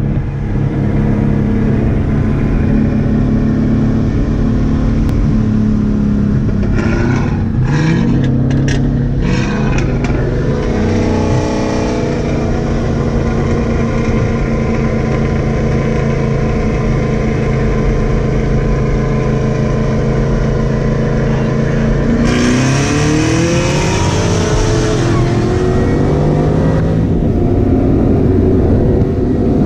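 Twin-turbocharged 5.0 Coyote V8 of a 2015 Mustang, heard from inside the cabin, running steadily at cruising speed. About three-quarters of the way through it pulls hard at full throttle under boost, rising in pitch with a loud rushing hiss over it for a few seconds.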